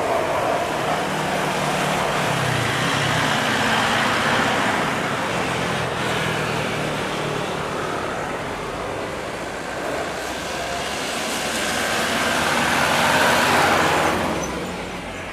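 Boeing 737-500 airliner landing, its jet engines giving a continuous rushing roar that swells to a peak near the end and then drops away quickly.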